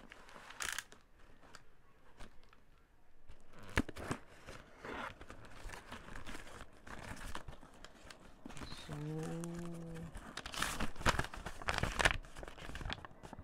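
Cardboard parcel being opened by hand: packing tape and paper tearing and crinkling in irregular short rustling bursts, loudest near the end as a crumpled paper receipt is unfolded. About nine seconds in, a steady low hum lasts about a second.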